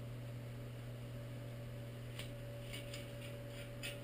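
Faint light clicks and taps from a metal return-air grille being handled and fitted into its wall opening, starting about two seconds in, over a steady low hum.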